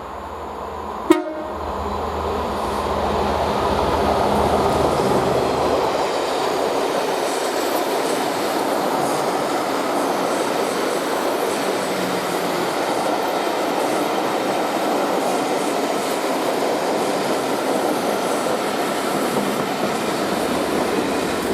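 A train passing: rail and running noise builds over the first few seconds and then holds steady and loud. A single sharp knock comes about a second in, just before the noise builds.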